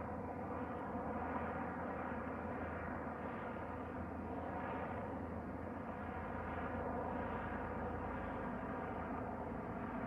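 Distant police helicopter in flight: a steady hum of many tones from its rotor and engine, swelling and fading slightly every second or two.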